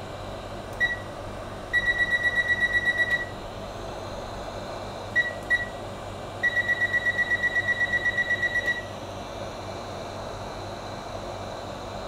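Hot-air rework station beeping as its temperature setting is stepped up with its buttons. It gives a single beep, then a fast run of about seven beeps a second while a button is held, two more single beeps, and another, longer run. The hot-air handpiece's blower hisses steadily underneath.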